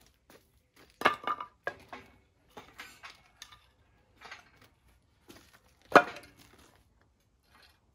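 Hard objects clanking and knocking as they are handled, some with a short metallic ring: a cluster of clanks about a second in, scattered knocks after, and one loud knock about six seconds in.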